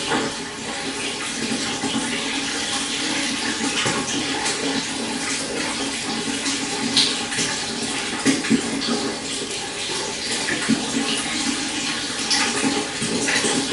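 Shallow stream flowing steadily, with a constant rush of water and small splashes and gurgles breaking through every second or so.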